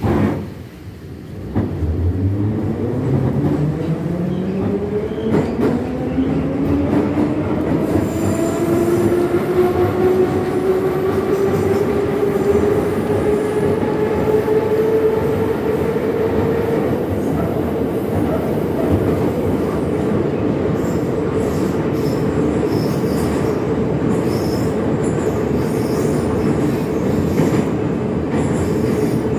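A vintage metro train's traction motors whine up in pitch as the train pulls out of the station and accelerates for about fifteen seconds, then hold a steady whine over the rumble of wheels on rail, heard from inside the car. A knock sounds at the very start.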